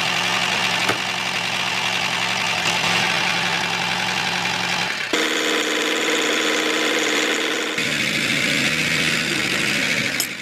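An engine or motor running steadily, its tone changing abruptly about five seconds in and again near eight seconds.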